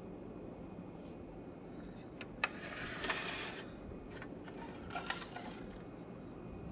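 Faint steady background hum with a few soft clicks and a short rustle about two and a half seconds in.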